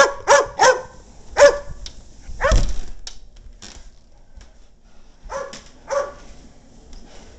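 A dog barking in short, loud barks: a quick run of four, a longer bark a second later, then two more after a pause.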